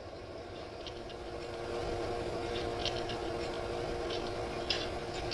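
Model goods train moving along the layout: a steady hum from the small electric locomotive motor that grows louder about a second and a half in, with light clicking from the wheels over the rails.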